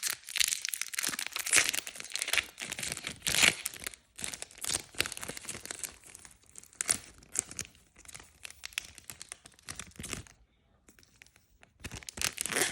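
Trading-card pack wrappers crinkling and tearing as packs are opened by hand. There is a brief pause near the end before the crinkling resumes.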